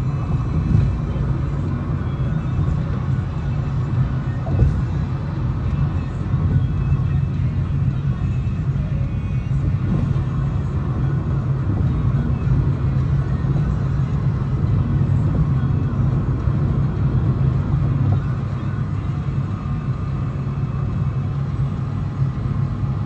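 Steady low rumble of a car's engine and road noise, heard from inside the cabin, with a couple of brief knocks in the first few seconds.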